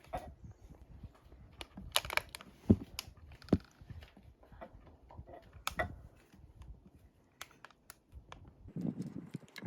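Irregular light clicks and knocks with soft rustling, a few louder knocks among them, as of small hard objects being handled.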